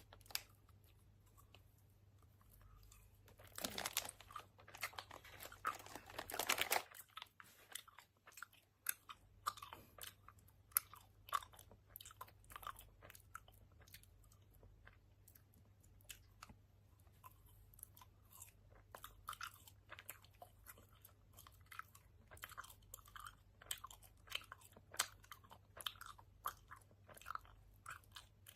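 Faint, wet open-mouth chewing and lip smacking of a chewy gummy candy, a run of short clicks several times a second. About four seconds in there is a louder noisy stretch lasting some three seconds.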